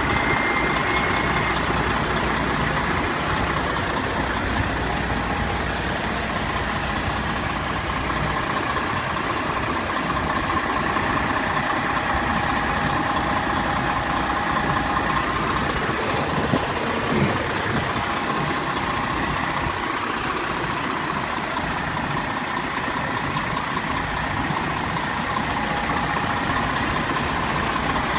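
Seagrave fire truck's diesel engine idling up close, a steady low rumble with a steady high whine over it.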